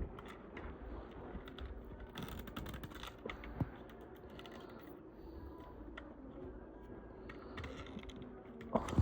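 Faint, scattered small clicks and light rustling from hands working at a boxed diecast model car and its packaging, with one sharper click about three and a half seconds in.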